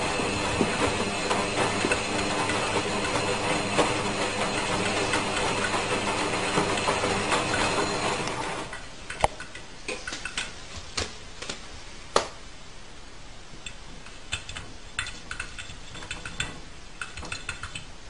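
Front-loading washing machine running, its drum turning the laundry with a steady motor hum, until the drum stops about eight seconds in. In the quieter pause that follows come scattered sharp taps and clicks, a few of them loud, from the cat's paws striking the glass door.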